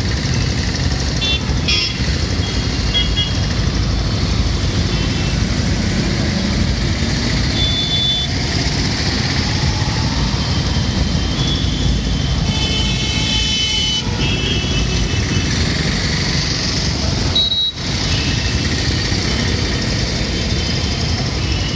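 Mixed street traffic of cars, motor scooters and auto-rickshaws with engines running, under a steady rumble. Short horn toots sound again and again, the longest about two-thirds of the way in.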